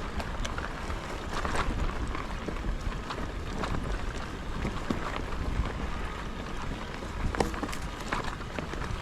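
Mountain bike rolling along a dirt forest trail: steady wind rumble on the microphone with frequent small clicks and rattles from the bike over the rough ground.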